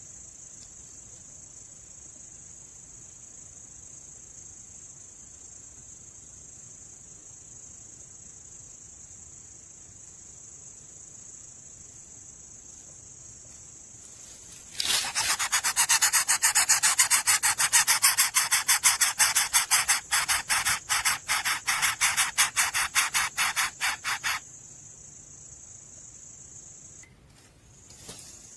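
Steady high chirring of crickets. In the middle it is broken for about ten seconds by a loud, rapid rasping pulse that stops abruptly.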